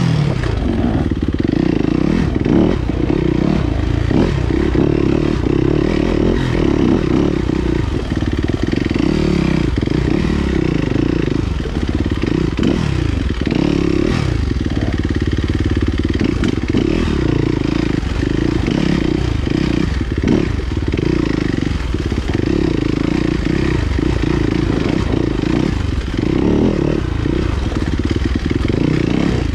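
Enduro motorcycle engine ridden along a single-track trail, its pitch rising and falling constantly as the throttle is opened and closed, with occasional knocks.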